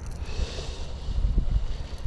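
Wind buffeting the microphone in a steady low rumble, with a soft hiss over it for the first second and a half.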